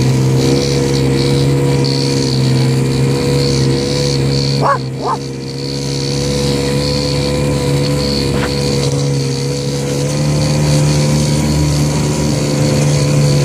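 Off-road side-by-side engine idling steadily. About five seconds in, two short high yelps cut through, with a fainter one a few seconds later.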